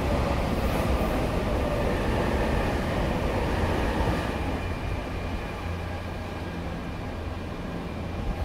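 Nankai 9000 series electric train, re-equipped with a VVVF inverter, pulling into the platform and slowing, its motor whine falling in pitch over the first few seconds over the rumble of wheels on rail. The sound eases off as the train comes to a stop.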